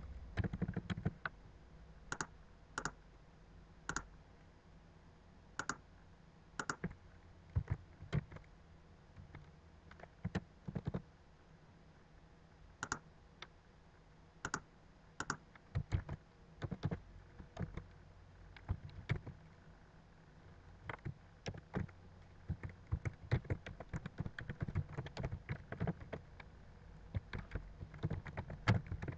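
Clicks and typing on a computer keyboard: scattered single clicks in the first half, then runs of quick keystrokes in the second half.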